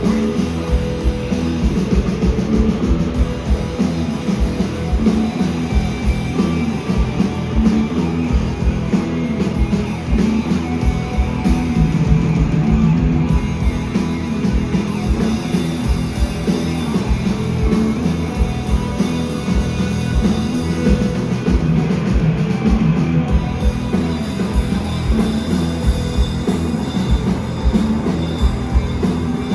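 Live rock band playing at full volume, with heavy bass guitars over a steady drum beat, recorded from the audience.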